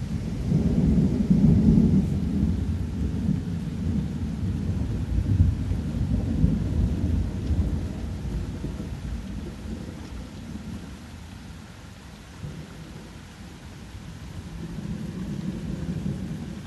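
Thunder rolling over steady rain. A long low rumble swells about half a second in, is loudest in the first two seconds and rolls on for several seconds before fading. A smaller rumble swells again near the end.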